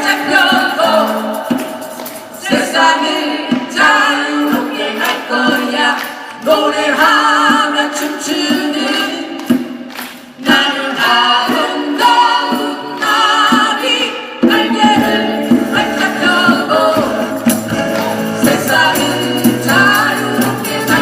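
A band playing a song live, with a sung melody with vibrato over the accompaniment.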